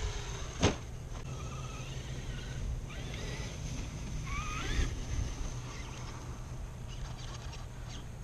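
Traxxas X-Maxx RC monster truck landing a jump on grass: its electric motor whine falls away while it is airborne, then a single sharp thump about two-thirds of a second in as it touches down.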